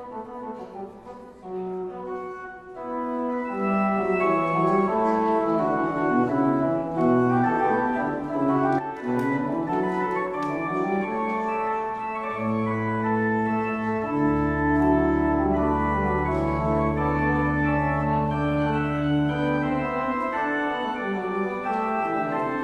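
Church organ playing sustained chords, quiet for the first few seconds and then fuller. Deep held pedal bass notes come in past the halfway point and stop shortly before the end.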